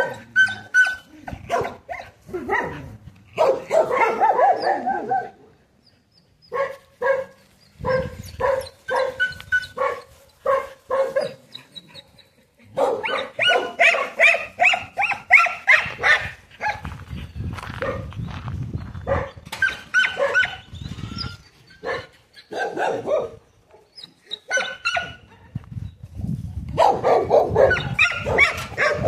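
A group of dogs barking and yipping over and over, in runs with short pauses between them.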